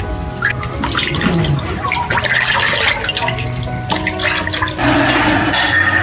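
Water sloshing and splashing in a metal pot as a hand scoops and stirs it, with irregular small splashes and clicks. About five seconds in, a louder, steady rushing noise takes over.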